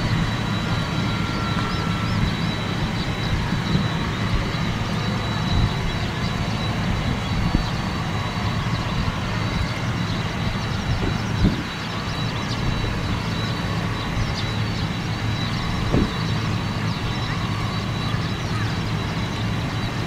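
Boeing 767's jet engines running at low power as the airliner taxis slowly: a steady low rumble with a thin, constant high whine over it.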